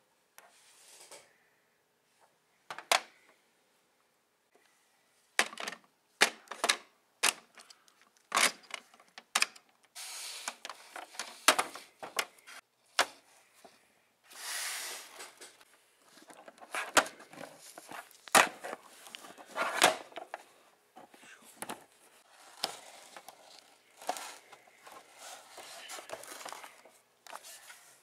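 Hard plastic action figures knocking and clacking against each other and a plastic toy playset, with rustling and scraping from a gloved hand handling them. There are sharp taps at irregular intervals and a few longer stretches of rubbing noise.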